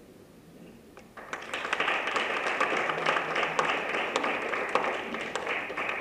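An audience breaks into applause about a second in, many hands clapping together.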